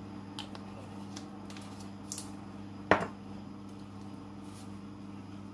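A few light clicks and one sharp knock about three seconds in, as a pepper shaker is set down on the kitchen counter, over a steady low hum.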